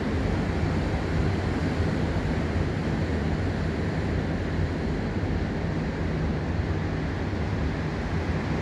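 Ocean surf breaking on a rocky shoreline, a steady wash of waves with a low rumble.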